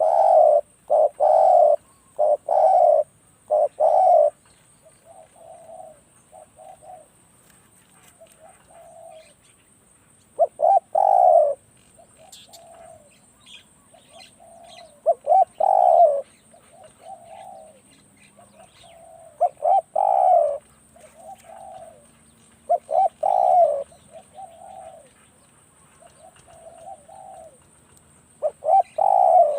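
Spotted doves cooing: one close bird calls in loud groups of several coos every few seconds, while fainter coos from another dove fill the gaps between them.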